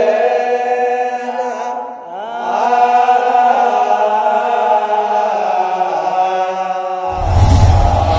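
Intro music of Ethiopian Orthodox liturgical chant: voices holding long, slowly moving notes, breaking off briefly about two seconds in. A deep boom sounds near the end.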